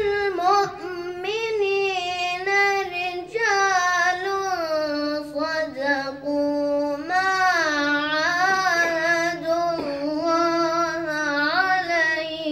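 A boy's voice chanting Quranic verses in melodic tilawah, drawing out long held notes that slide up and down in pitch.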